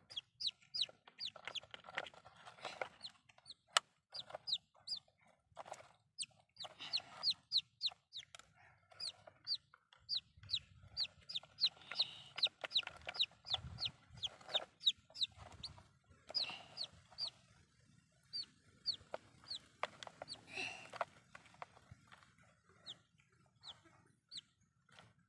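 Domestic chicken chick peeping over and over, short high chirps several a second, with brief pauses between runs.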